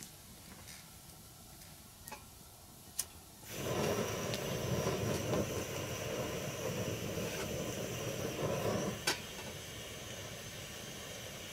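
Portable gas canister stove lighting: two clicks, then about three and a half seconds in the burner catches and runs with a loud steady hiss of burning gas. Near nine seconds a metal clank as a pot is set on it, after which the burner goes on as a softer steady hiss.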